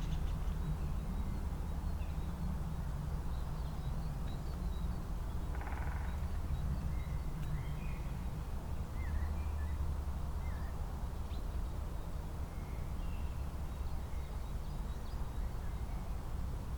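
Wild songbirds chirping faintly and sporadically over a steady low rumble, with one short harsher call about six seconds in.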